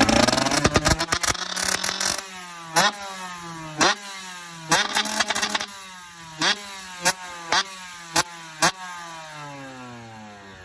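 TM 125 two-stroke motocross engine through a Pro Circuit exhaust, revved hard at first. It then runs quieter with its pitch slowly falling, broken by a string of short, sharp throttle blips.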